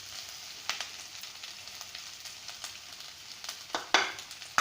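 Onion, potato and carrot stuffing sizzling in oil in a pan, with a few sharp clicks of a spoon against the pan, two of them close together near the end.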